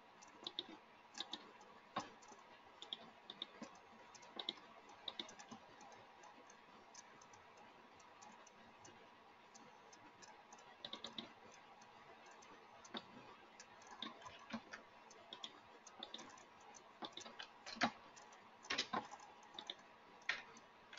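Computer keyboard typing and mouse clicks: scattered, faint key and button clicks, sparse for the first half and coming thicker in the last several seconds.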